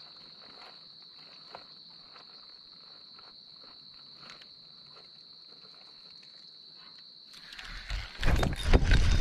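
Faint steady high-pitched drone with scattered light clicks and ticks. About seven and a half seconds in, the drone gives way to loud, close rustling and knocking.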